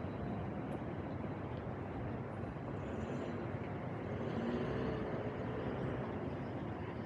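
City street traffic: a steady hum of cars and other road vehicles, swelling a little about four seconds in as a vehicle goes by.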